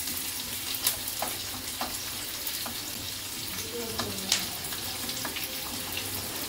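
Chopped onion sizzling in oil in a wok-style pan on a gas burner, frying until soft. A utensil stirring it clicks against the pan now and then, loudest about a second in and again about four seconds in.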